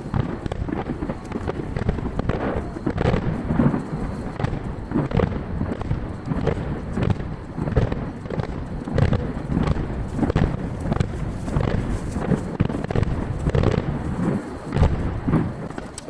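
Aerial firework shells bursting in quick succession, heard from a distance with their booms echoing back. Played back at three times normal speed, the bangs crowd into a dense, near-continuous rumble.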